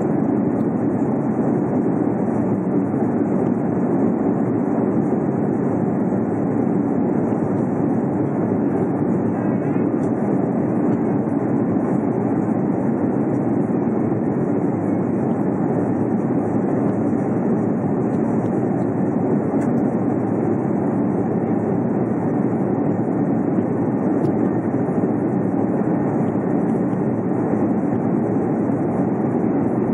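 Steady airliner cabin noise during the climb: the constant rush of jet engines and airflow heard inside the passenger cabin, even and unbroken.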